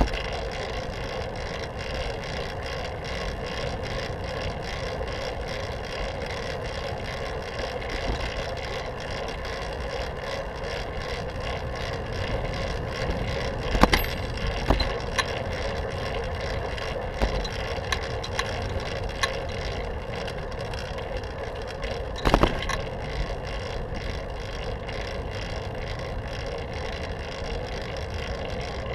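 Fixed-gear bicycle riding along a paved path, heard from a camera mounted on the handlebars: a steady hum of tyre, drivetrain and wind noise, with frequent small rattles and a few louder knocks about halfway and again about three quarters of the way through.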